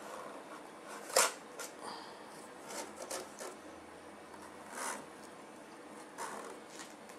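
A cat moving about inside a cardboard box: several short, dry scrapes and rustles of the cardboard, the sharpest about a second in.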